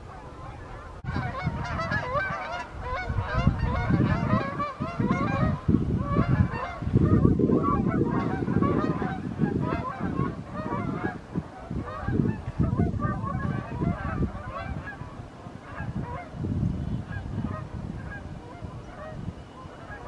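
A flock of Canada geese honking in flight, many birds calling at once in dense overlapping honks. The honking jumps louder about a second in and thins out toward the end.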